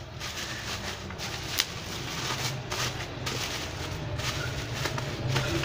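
Plastic packaging rustling and crinkling as hands handle and unwrap a parcel, with one sharper click about one and a half seconds in.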